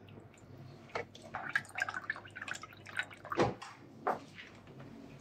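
Orange juice poured from a small carton into a tall glass over ice and Campari, with a few light knocks and clinks around it.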